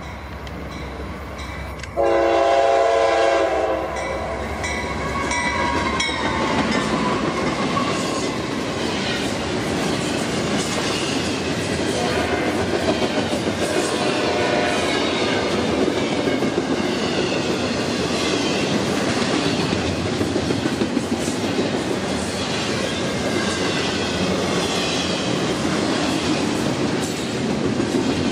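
Norfolk Southern freight locomotive's air horn blasts for about two seconds, a couple of seconds in. Then a fast double-stack intermodal train rushes past, its wheels clicking steadily over the rails.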